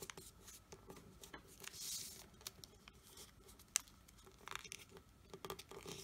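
Faint rustling and crinkling of a square of origami paper being folded and creased by hand, with scattered small clicks, a brief hiss of paper sliding about two seconds in, and a sharper tick a little after halfway.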